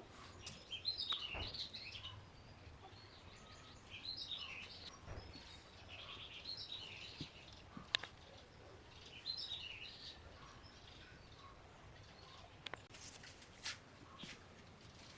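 A songbird singing faint bursts of quick, high twittering chirps, four phrases a few seconds apart, with a few sharp clicks in between.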